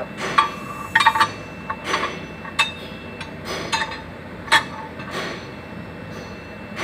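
Hammer blows knocking a damaged cylinder liner out of a Volvo truck engine block: about ten sharp metallic knocks at an irregular pace with a short ring after each, stopping about five seconds in.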